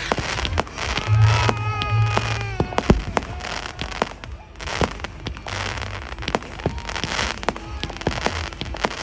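Fireworks going off: a rapid, irregular run of sharp bangs and crackling pops throughout. A brief pitched sound, about a second and a half long, comes early.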